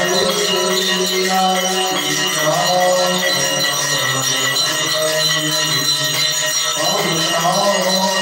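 Temple bells ringing continuously while an aarti hymn is chanted over them.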